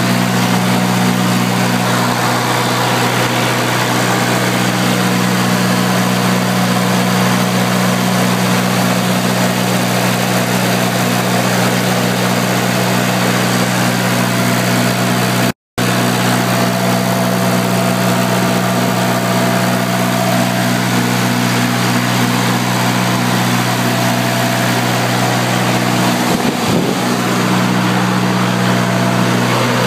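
John Deere diesel engine of a Kohler generator running steadily at constant speed. The sound breaks off completely for an instant about halfway through.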